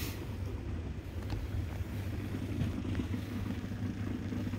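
A steady low mechanical hum from a running machine, with a few faint ticks.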